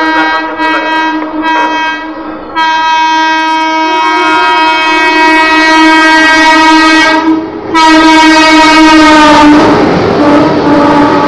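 Locomotive air horn of the Rajdhani Express as it runs through the station at speed without stopping. It gives a few short toots, then a long blast of about five seconds, a brief break and a second long blast. About nine and a half seconds in, the rush and clatter of the passing train takes over.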